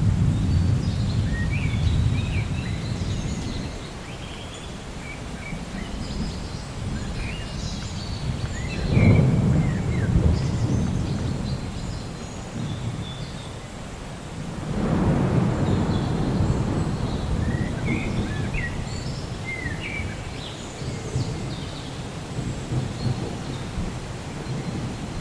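Thunderstorm in a forest: steady rain under a continuous low rumble of thunder, with two louder rolls, one about a third of the way in and one past the middle. Birds chirp throughout.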